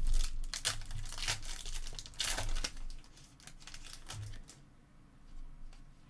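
Crinkling of a trading-card pack's plastic wrapper being handled, with irregular sharp crackles that thin out to a few faint ticks after about four and a half seconds.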